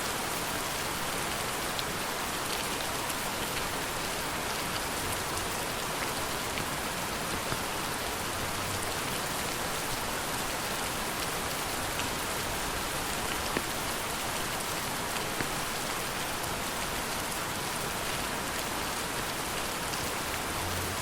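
Steady rain falling on a surface, an even hiss with scattered individual drops ticking, one a little louder about two-thirds of the way through.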